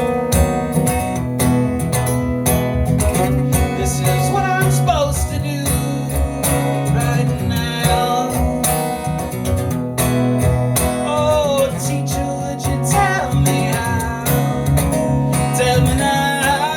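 Live band playing an instrumental passage: strummed acoustic guitar keeps a steady rhythm under a lead melody that slides between notes.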